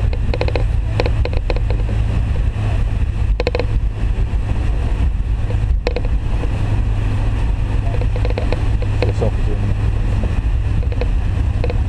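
Steady, loud rumble and hiss inside the cabin of an MD-82 airliner under takeoff power, from its two rear-mounted Pratt & Whitney JT8D turbofans.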